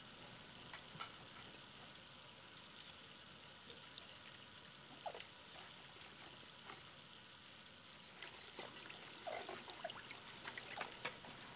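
Kitchen tap running faintly into a sink while dishes are washed by hand, with a few light knocks and clinks of dishes, more of them near the end.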